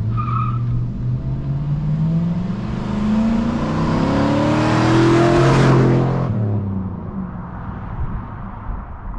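2006 Chevy Silverado's 5.3-litre V8 with a cheap 4-inch cold air intake, accelerating hard. The engine pitch climbs twice, it is loudest about five to six seconds in, then the sound drops away and fades as the truck goes past.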